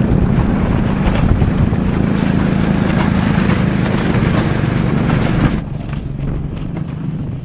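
Snowmobile engine running steadily while towing, with wind noise on the microphone. About five and a half seconds in the sound cuts to a quieter, lower engine drone.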